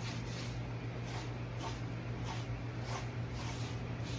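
Repeated rubbing strokes, about two a second, of an applicator spreading a wet, thick coat of dye over a wooden desk top, over a steady low hum.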